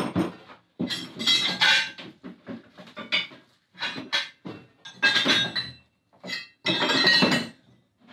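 Loose metal parts of an antique post drill clinking and clattering against each other in a string of short, separate bursts.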